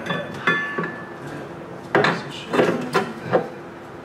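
Metal-on-metal clanks and rattles as a loose rear brake caliper and its mounting bracket are handled and set aside. There is a short metallic ring near the start and a few sharp knocks in the second half.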